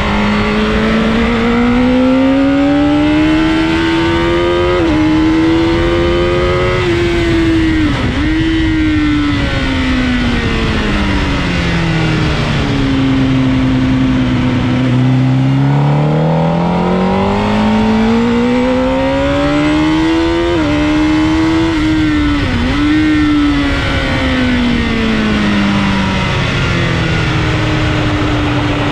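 Sports motorcycle engine heard from on board at track speed, rising in pitch under acceleration and falling away under braking, with sudden drops in pitch at gear changes, over steady wind rush.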